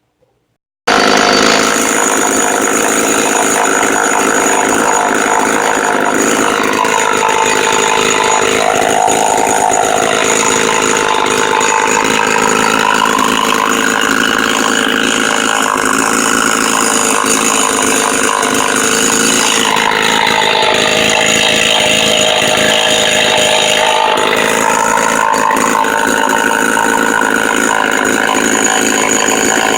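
Vintage Homelite XL-1 two-stroke chainsaw engine running steadily on its first run after sitting unused, its engine speed shifting twice, about a third of the way in and again around two-thirds of the way.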